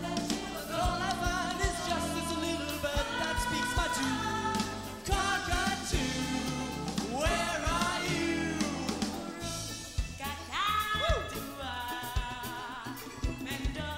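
Live pop band playing with singing: sung lines from lead and female backing vocalists over bass and drums keeping a steady beat.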